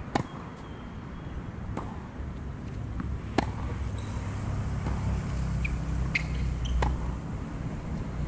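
Tennis rally on a hard court: three sharp pops of the racket striking the ball about three seconds apart, with quieter ball bounces and the far player's hits in between. A steady low rumble of traffic runs underneath.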